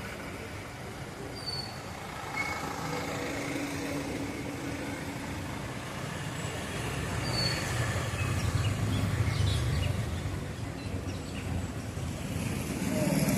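Street traffic: passing vehicles with an engine rumble that swells about eight seconds in, and a few short high chirps.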